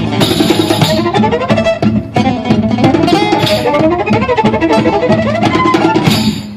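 Gypsy-style tune played live on fiddle with guitar accompaniment, the fiddle running quickly through the melody; the playing drops away briefly near the end.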